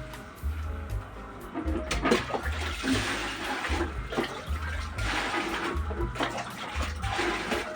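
Background music with a steady low beat over rushing, splashing water.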